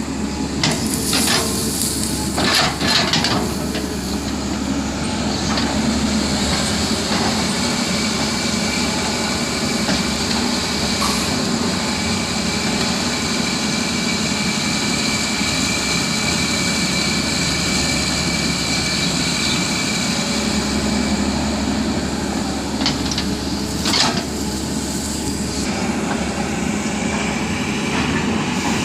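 Diesel engine of a heavy earthmoving machine running steadily while it digs, with a few sharp metallic knocks in the first few seconds and again near the end.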